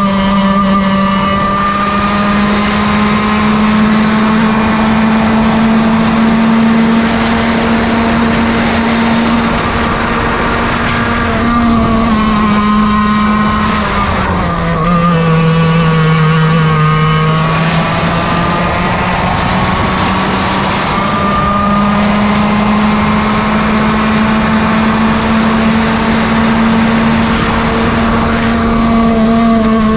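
Yamaha KT100 two-stroke go-kart engine running hard with a steady high buzz. About halfway through, the pitch drops for several seconds, then climbs back up to its earlier note.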